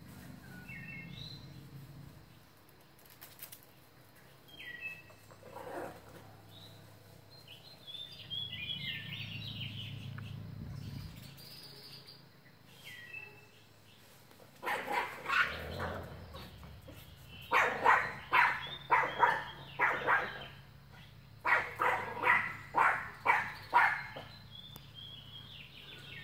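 Wild birds chirping in the first half, then Yorkshire terriers yapping in quick runs of sharp barks, about two a second, the loudest part coming in the last third.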